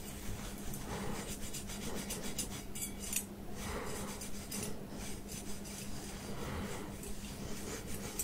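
Wire scalp massager's thin metal prongs scratching over short-cropped hair and scalp in repeated strokes.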